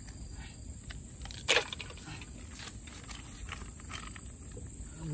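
Wood fire crackling under a cooking pot: scattered small pops, with one louder crack about a second and a half in.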